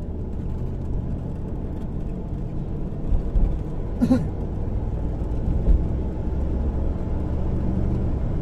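A motor engine running steadily with a low drone, with a few low bumps and one brief sharp sound about four seconds in.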